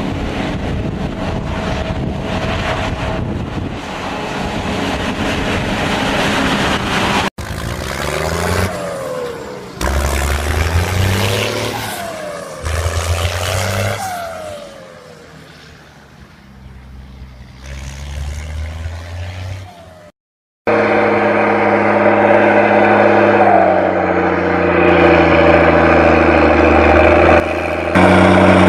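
Engine sound effects dubbed over the toy vehicles: a rushing noise at first, then engines revving up and down in pitch, a brief cut to silence about 20 seconds in, and then a steady engine hum.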